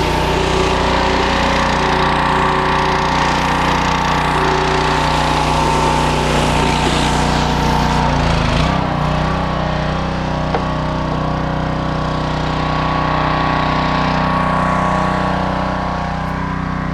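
Northern Tool 3000 psi pressure washer's engine running steadily under load, with the hiss of high-pressure water from a spinning surface cleaner; the sound shifts briefly about halfway through.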